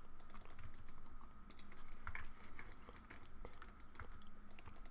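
Computer keyboard keys tapped in quick, irregular clicks, faint against a low steady background hum.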